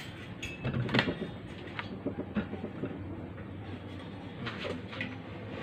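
A steel tubular frame swinging open and shut on newly welded cylindrical hinges, turning smoothly, with a few light metal clicks and knocks over a steady low hum.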